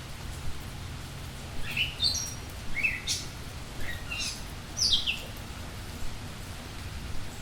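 A songbird giving a run of short, high chirps, several sliding down in pitch, over a steady hiss of rain.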